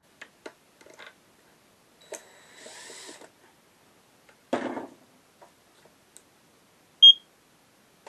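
Workbench handling sounds: scattered light clicks, a brief hiss a couple of seconds in, and a clatter about halfway through as a cordless drill is set down on the wooden bench. Near the end comes one short high electronic beep, the loudest sound.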